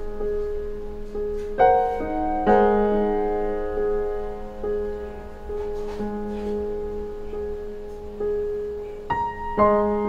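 Slow background piano music: notes and chords struck every second or few and left to ring.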